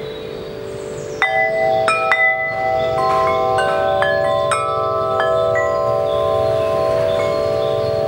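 Six-tube aluminium-alloy wind chime with 44 mm tubes ringing. A cluster of strikes comes about a second in, then a string of further strikes over the next few seconds, and the long tones ring on and overlap.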